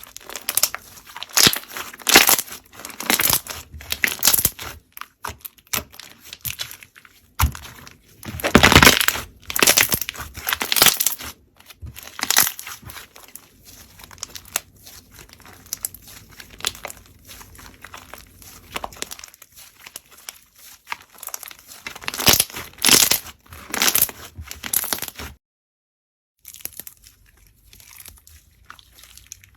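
Slime being squeezed, stretched and poked by hand, giving dense, irregular crackling and popping as air pockets in the slime burst. The sound comes in louder clusters and stops for about a second near the end.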